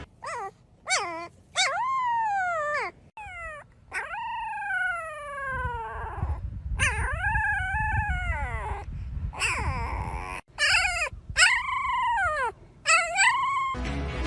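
A dog howling and whining: a string of about ten drawn-out cries, most sliding down in pitch.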